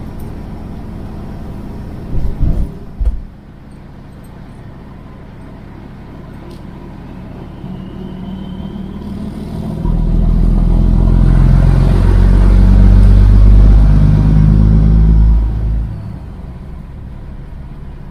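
Kenworth semi truck's straight-piped diesel engine running on the road. A few thumps come about two seconds in, then the engine note swells into a loud, low drone for about six seconds before dropping back.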